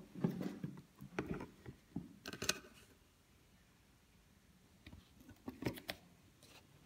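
Soft, scattered rustles and taps of a paperback textbook's page being turned and handled, clustered in the first two or three seconds and again briefly before the end, faint in between.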